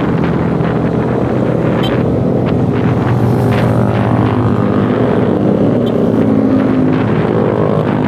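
Yamaha R15 V3's single-cylinder engine running steadily at cruising speed in fifth gear, around 60 km/h, with wind on the microphone. The engine note dips slightly about six seconds in.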